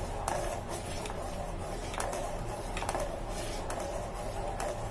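A metal spoon stirring custard in a steel saucepan, clinking against the pan a few times with a short ring, over a steady low hum.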